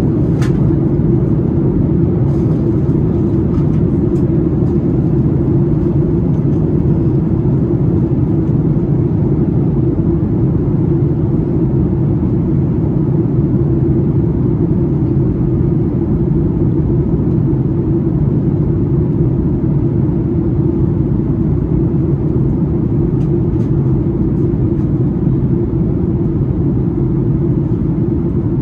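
Steady in-flight cabin drone of a Boeing 737-8 MAX, heard from inside the passenger cabin: a low rumble from its CFM LEAP-1B engines and the airflow past the fuselage. There is a single sharp click about half a second in.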